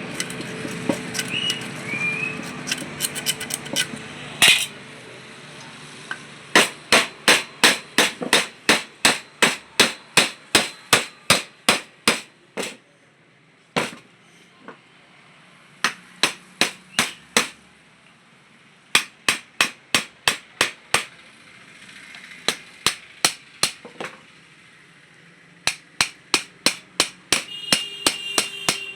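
Hammer blows on metal, struck in quick runs of about three a second with short pauses between runs, as an alternator is knocked apart to get its bearing out.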